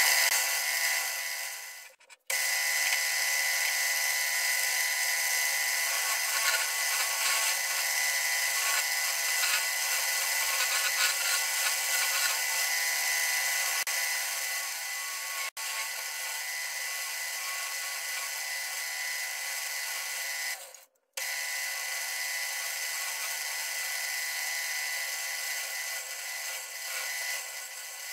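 Wood lathe running with a steady whine while a turning tool works the spinning hardwood bowl blank. The sound breaks off briefly twice.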